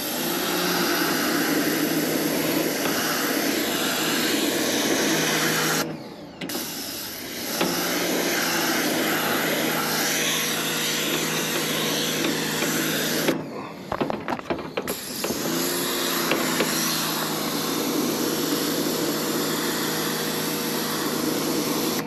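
Pressure washer running, its motor-driven pump humming under the hiss of the spray as the jet rinses coil cleaner and dirt out of an air-conditioner evaporator coil. Pump and spray cut off briefly twice, about six and about fourteen seconds in, then start again.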